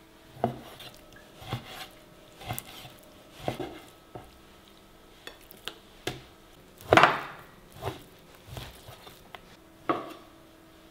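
Kitchen knife slicing raw chicken and beef on a wooden cutting board, the blade knocking on the board at uneven intervals about once a second, with one louder knock about seven seconds in.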